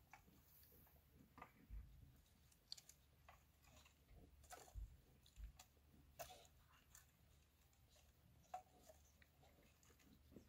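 Near silence: faint, scattered clicks and ticks at irregular intervals over quiet room tone.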